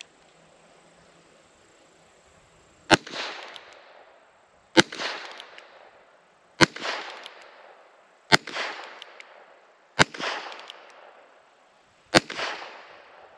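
Six shots from a Heritage Rough Rider .22 LR single-action revolver firing CCI Standard Velocity 40-grain lead round-nose ammunition, spaced about two seconds apart, each followed by a short echo. All six fire normally, with a report that is a little too quiet.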